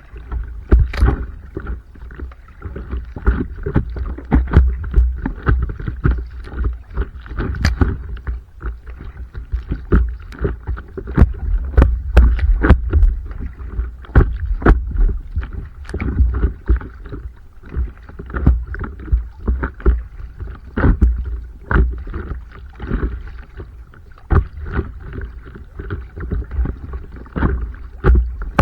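Stand-up paddleboard paddling: the paddle dips and splashes in the water, with irregular sharp knocks and splashes about once a second over a steady low rumble.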